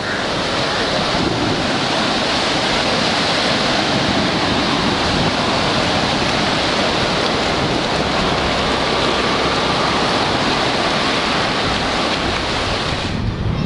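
Sea surf washing up over a sandy beach at the water's edge: a loud, steady rushing that cuts off near the end.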